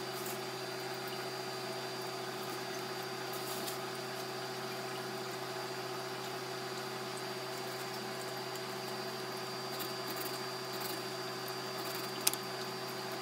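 A steady mechanical hum, even throughout, with a few faint taps and one sharper click near the end.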